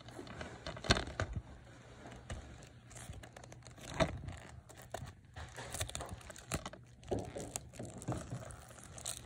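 Plastic shrink-wrap on a DVD case crinkling and tearing as it is picked at and peeled open, with a couple of sharp knocks from the plastic case being handled, about one second and four seconds in.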